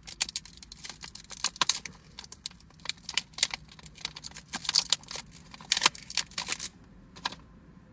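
Plastic battery packaging being handled and opened: a run of irregular crinkles, clicks and tearing sounds that stop near the end, with one last click.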